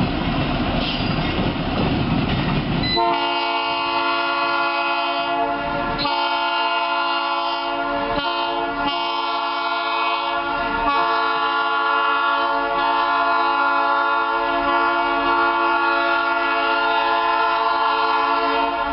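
EMD GP7 diesel locomotive's air horn blowing from about three seconds in: several long blasts with brief breaks, the last held for about eight seconds. Before the horn, the rumble of the train rolling away.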